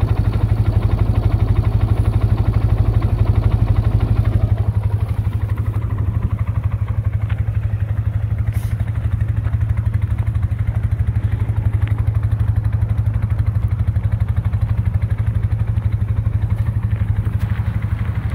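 2013 Polaris Sportsman 550 EFI ATV's single-cylinder engine running steadily as the quad is ridden slowly around. It is loud and close for the first few seconds, then quieter as the machine moves off.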